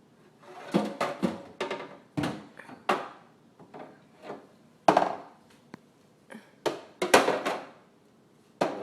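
Condiment bottles and jars in a refrigerator clunking and knocking against each other and the door shelves as they are moved in and out, about a dozen irregular knocks.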